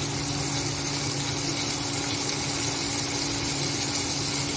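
Chicken pieces sizzling steadily as they fry in oil in a nonstick pan, over a constant low hum.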